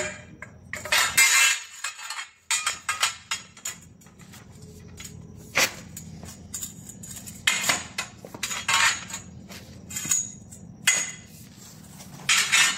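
Irregular metallic clanks, knocks and scrapes of steel EMT conduit being handled in a pipe bender while a saddle bend is formed, coming in several separate clusters.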